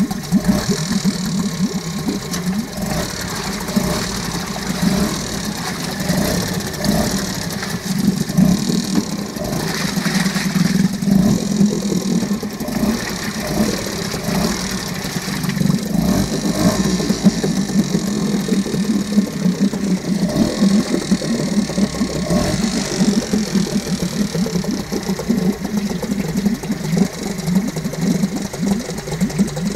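Yamaha 4 hp two-stroke outboard motor running steadily while test-run in a barrel of water, its propeller churning and splashing the water.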